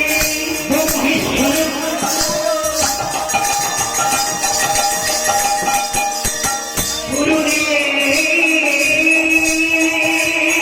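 Music with jingling, tambourine-like percussion and long held melody notes; a new high sustained line comes in about seven seconds in.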